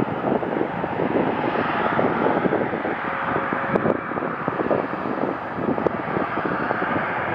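Jet airliner engines giving a steady rushing noise as the aircraft passes, with wind buffeting the microphone.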